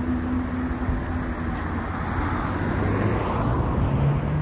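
Road traffic and heavy diesel vehicles running: a steady low engine hum under continuous traffic noise, which swells about two to three seconds in as a vehicle passes.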